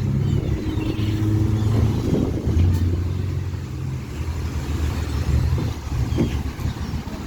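Fishing boat's engine running with a steady low drone that shifts in pitch a few times.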